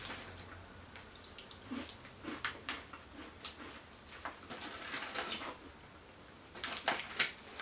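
Plastic MRE cookie pouch crinkling and rustling as a hand digs in for a toffee cookie: scattered soft crackles and clicks, with a brief louder cluster near the end.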